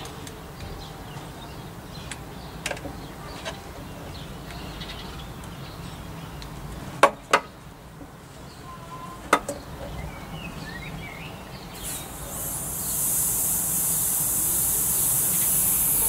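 Air hissing steadily into an evacuated glass-jar vacuum chamber as the vacuum is let go through the hand pump, starting about twelve seconds in. Before it, a few sharp clicks.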